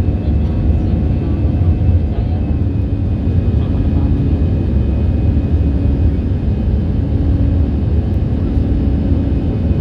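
Passenger airliner's engines droning steadily inside the cabin, a deep rumble with a few faint steady tones above it.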